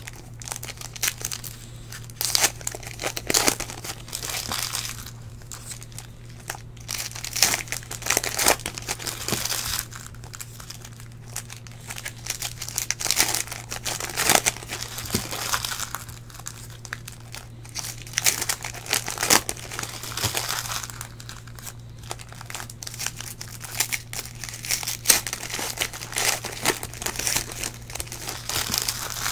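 Panini Prizm trading-card pack wrappers being torn open and crumpled by hand, in irregular crinkling bursts throughout, over a steady low hum.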